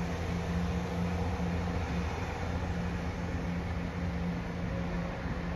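Chiltern Railways Class 168 diesel multiple unit pulling away, its diesel engines giving a steady low drone that fades slightly as it moves off.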